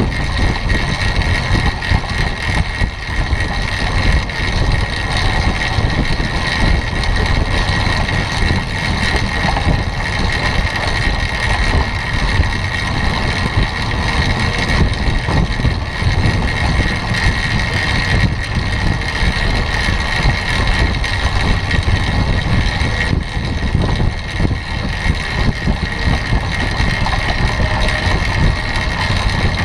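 Steady rushing noise of a track bike riding a wooden velodrome at about 25 mph, heard from a camera on the bike: wind over the microphone and tyres rolling on the boards, with a steady high hum underneath.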